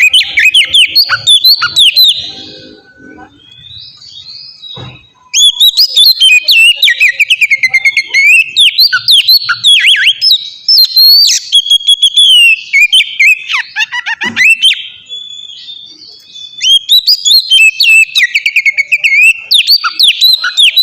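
Oriental magpie-robin (kacer) in full song: long, fast, varied phrases of whistles, slurred notes and rapid chattering trills. The song comes in three long bouts, with short quieter pauses about two seconds in and around fourteen seconds in.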